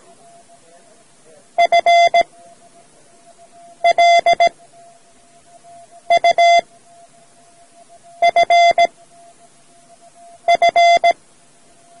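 Morse code sent as a steady mid-pitched beeping tone, spelling the word FLUFF: five letters (..-. .-.. ..- ..-. ..-.) about two seconds apart, each a quick run of dots and dashes. A faint trace of the same tone lingers between the letters.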